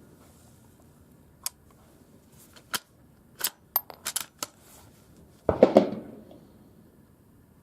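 A .22 LR rifle fires one subsonic round through a Griffin Armament Optimus suppressor about five and a half seconds in: a short, sharp report that dies away quickly. Before it come several sharp clicks and ticks.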